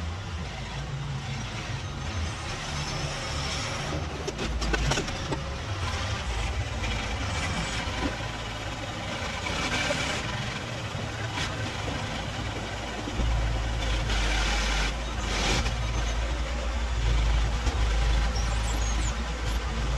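Heavy engine running steadily, louder from about two-thirds of the way through, as a knuckle-boom crane lowers a load of metal pieces onto a wooden flatbed trailer. A few short bursts of hiss cut in near the middle.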